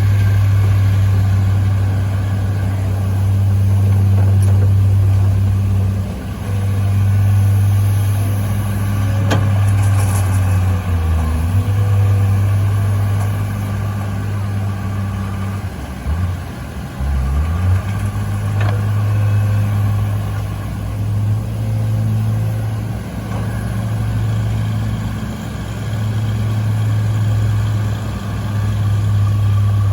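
Hydraulic excavator's diesel engine running steadily at working speed. Its pitch dips briefly a few times, most deeply about two-thirds of the way through, then recovers.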